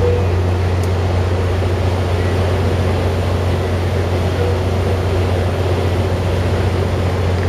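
EMD F59PHI diesel-electric locomotive, CDTX 2001, idling at a standstill: a steady, loud low engine hum.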